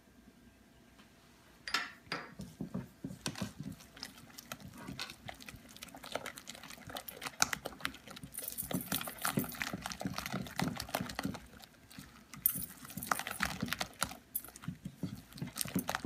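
A whisk beating thick chickpea-flour batter in a glass bowl. It starts about two seconds in as a quick, irregular run of wet scraping and clicks and taps against the glass.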